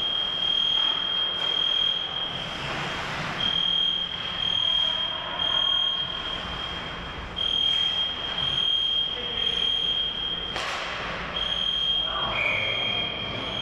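Electronic fire alarm sounding: a loud, high-pitched tone beeping on and off in pulses of just under a second. Ice-skate scrapes are heard a couple of times, about three seconds in and near the end.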